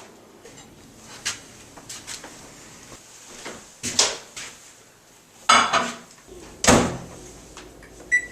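Kitchen handling noises: scattered clicks and knocks, then a louder thump like a microwave door being shut near the end, and a microwave keypad beep right at the close.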